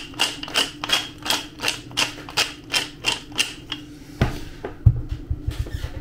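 Wooden pepper mill twisted to grind pepper: a quick even run of ratcheting clicks, about five a second, that stops a little before four seconds in. Then a knock and a few dull thumps.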